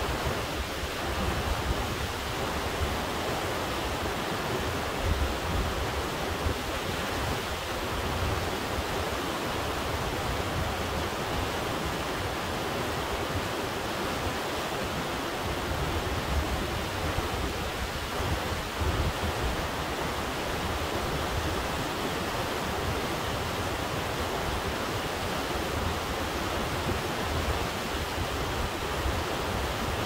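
Kennicott River, a silty glacier-fed river, rushing steadily through whitewater rapids, with an uneven low rumble underneath.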